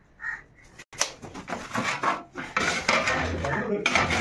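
Ceramic floor tiles clattering and scraping against each other and the work surface as they are handled, with many sharp clicks and knocks over a scraping rasp.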